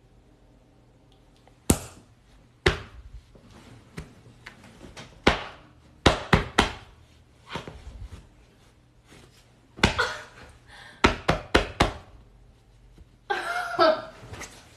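A string of sharp slaps and thumps, some single and some in quick runs of three or four, then a brief vocal sound near the end.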